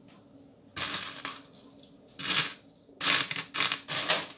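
Copper-coloured euro cent coins clinking and jingling as hands rake and pick through a pile of them in a plastic bowl. It comes in several short bursts after a quiet first second.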